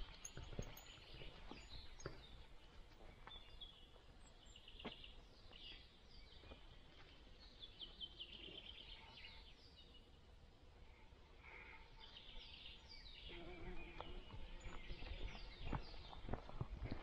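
Faint forest birdsong in short repeated phrases, with occasional soft steps and rustles of a dog's paws on the forest path that grow busier and louder near the end.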